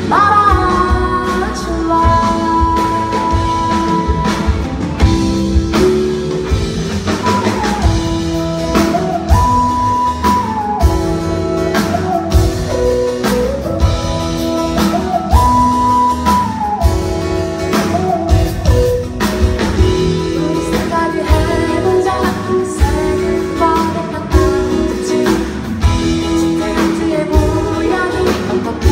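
Live pop song: a woman sings, holding and gliding between notes, over a band with regular drum beats.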